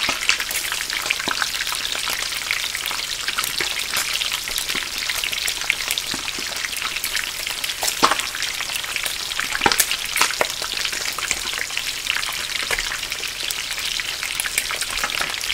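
Food frying in hot oil: a steady sizzle full of sharp crackles and pops, with a louder pop about eight seconds in and a few more around ten seconds.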